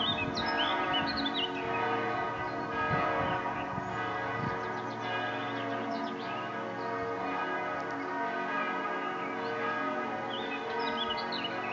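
Church bells ringing continuously, a dense wash of overlapping, sustained bell tones. Birds chirp over them, mostly at the start and again near the end.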